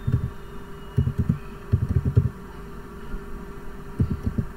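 Computer keyboard being typed on, heard as dull low thumps in short irregular runs of keystrokes, over a steady low electrical hum.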